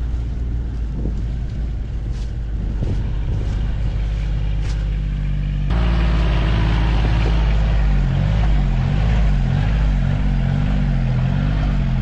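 John Deere Gator XUV 855D utility vehicle's three-cylinder diesel engine running as it drives across rough grass, with wind on the microphone. About halfway through the sound jumps abruptly to a louder, closer engine note, whose pitch rises and falls repeatedly near the end as the engine speed changes.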